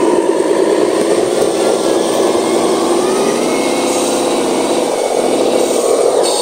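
Electric motor and gearbox of a handmade RC miniature truck whining steadily under load, the pitch sagging and recovering a little midway.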